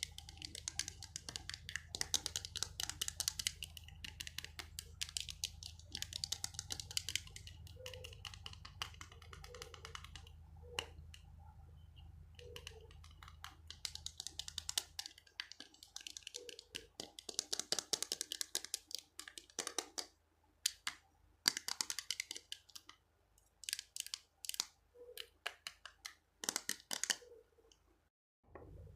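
Quick taps and scratches on an object, used as an ASMR trigger, coming in irregular clusters with short pauses. A low steady hum underneath stops about halfway through.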